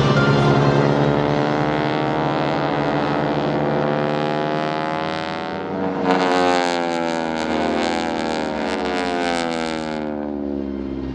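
Propeller-driven aerobatic airplanes passing overhead, the engine and propeller drone dropping in pitch as each goes by. A second pass about six seconds in is brighter and hissier, then fades.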